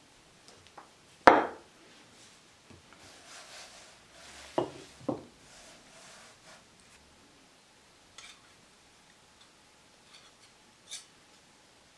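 Wooden rolling pin knocking on a floured worktop while rolling out cookie dough: one sharp knock about a second in, then two smaller knocks half a second apart a few seconds later, with soft rubbing of the pin and dough between them. A few faint clicks follow near the end.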